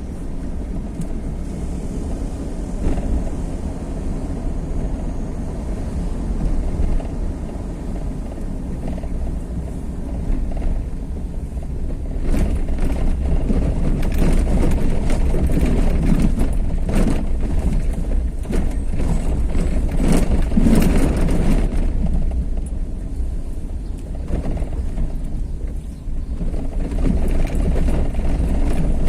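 A vehicle travelling along a road: a steady low rumble of engine and road noise, rougher and louder with scattered knocks from about twelve seconds in until about twenty-two seconds.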